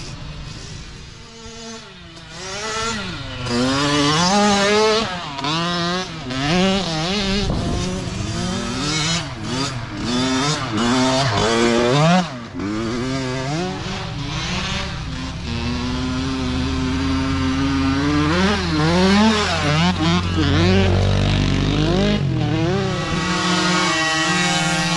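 Small two-stroke mini dirt bike engines revving hard as the bikes ride past one after another. The pitch keeps rising and falling with the throttle and the gear changes, then holds steadier for a few seconds past the middle.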